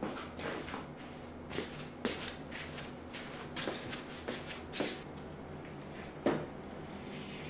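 Soft footsteps and clothing rustle as a person walks across a small room, with light clicks along the way and one sharper click about six seconds in.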